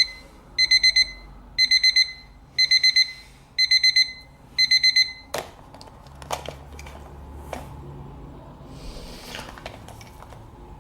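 Digital alarm clock beeping in quick groups of four, about one group a second. The beeping stops about five seconds in with a sharp click, followed by scattered faint rustles and light knocks.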